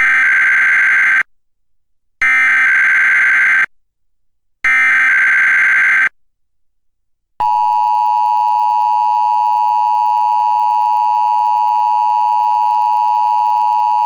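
Emergency Alert System test signal: three identical bursts of shrill SAME header data tones, each just over a second long and a second apart, then about seven seconds in the steady two-tone EAS attention signal (853 and 960 Hz sounding together) starts and holds.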